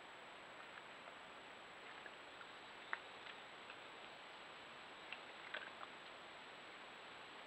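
Steady hiss of a trail camera's microphone with a thin high whine, broken by a few soft clicks: one sharper click about three seconds in and a small cluster around five and a half seconds.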